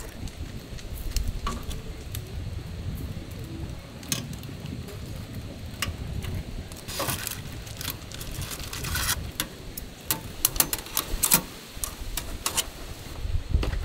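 Metal tongs clinking and scraping against a wood-burning stove's oven tray and aluminium foil as a foil tray of shrimp is slid out, with a cluster of sharp clinks between about nine and eleven seconds in. A steady low rumble runs underneath.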